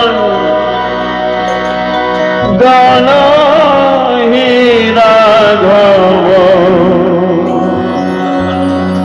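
Live Indian stage music: a harmonium holding chords under a wavering melody line, with a fresh phrase starting about two and a half seconds in.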